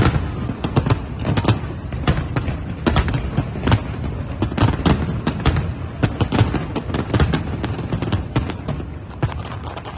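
Fireworks display: a dense run of sharp bangs, several a second, over a low rumbling background, thinning out near the end.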